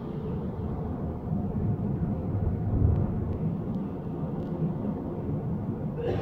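Berlin S-Bahn Class 485 electric train running, heard from inside the carriage: a steady low rumble from the wheels and running gear, with a few faint ticks.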